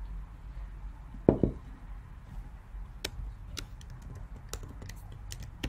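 A single dull thump about a second in, then scattered sharp clicks of a computer mouse and keyboard, uneven and a few a second, as text is selected and copied.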